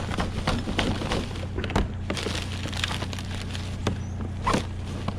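Curbside scrap being wrestled loose from a trash pile: an irregular series of knocks, clanks and rattles, with a few louder knocks about two seconds in and near the end, over a steady low hum.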